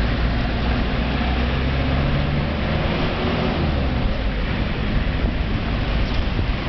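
A moving car's engine running with a low steady hum under a constant rush of road and wind noise.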